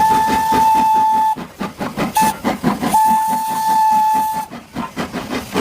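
Steam-train whistle over fast rhythmic chuffing, the train sound for a Thomas toy train. The whistle is a steady tone blown three times: long, a short toot, then long again.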